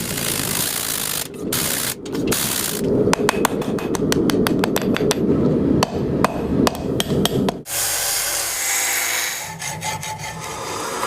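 Hand-tool workshop sounds: scraping or rasping strokes, then a fast run of sharp hammer taps, several a second, that stops near the eight-second mark, followed by steadier, softer scraping noise.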